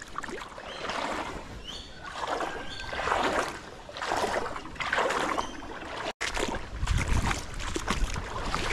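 Creek water sloshing and swishing in swells about once a second. After a brief cut, a low wind rumble on the microphone.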